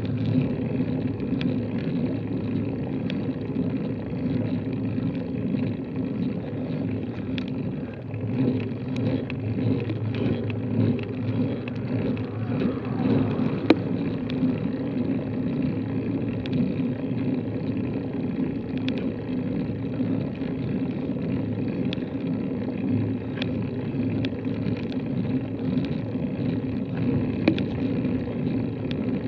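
Steady low rumble picked up by a bicycle-mounted camera on a bike climbing slowly up a steep paved road, with scattered faint clicks and one sharper click about halfway through.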